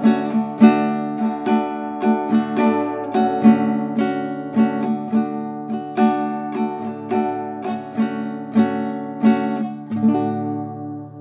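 Nylon-string classical guitar strummed in a steady rhythm. A last chord about ten seconds in is left to ring and fade.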